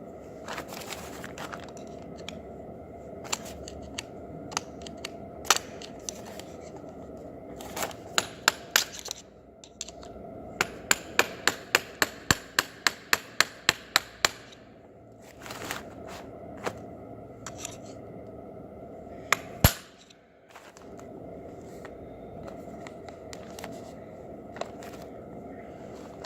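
Sharp clicks over a steady hum: a few scattered single clicks, then a quick even run of about three clicks a second lasting a few seconds, and one loud click later on.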